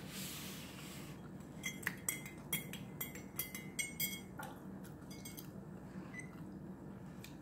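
Metal spoon stirring a drink in a ceramic mug, clinking against the sides about ten times in quick succession over two and a half seconds, after a short rustle of a paper napkin.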